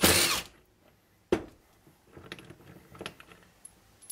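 Cordless power driver spinning out the slide-pin bolt of a single-piston brake caliper, stopping about half a second in. About a second later comes one sharp knock, then a few light clicks of the metal caliper parts being handled.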